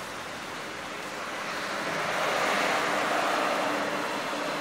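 A custom full-extension sliding tray, carrying an aluminium drawer unit, rolling out of a pickup truck bed on its slides. It makes a steady rushing rumble that swells in the middle and eases as the tray reaches full extension.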